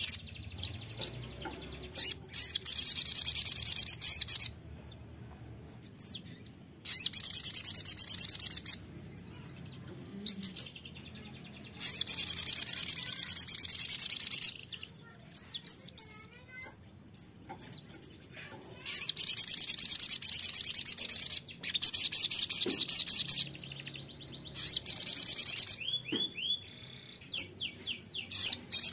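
Sogon sunbird singing: bursts of fast, high trilling, each about two seconds long, repeated every few seconds with quieter gaps between. Near the end a short run of falling notes comes between the bursts.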